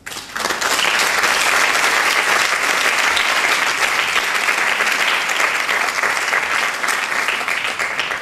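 Audience applauding: dense clapping that starts abruptly, holds steady, and begins to thin out near the end.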